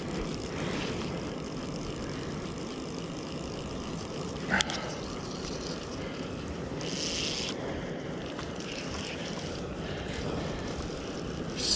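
Steady rushing of water at a spillway, with a single sharp click about four and a half seconds in and a brief high hiss near seven seconds.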